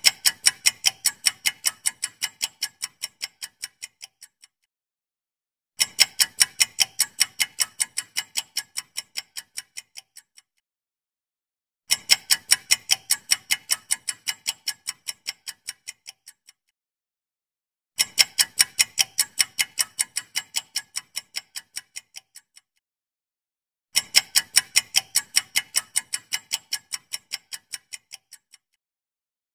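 Countdown-timer clock-ticking sound effect: rapid, even ticks in bursts of about four and a half seconds that fade toward the end of each, separated by about a second and a half of silence, five bursts in all.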